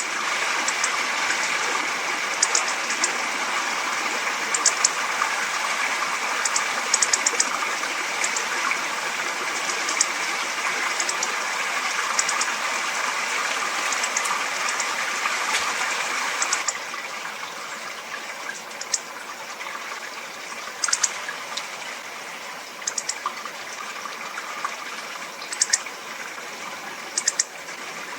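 Hawfinch giving short, sharp, high-pitched call notes, singly and in quick little clusters, over a steady rushing background that becomes quieter about two-thirds of the way through.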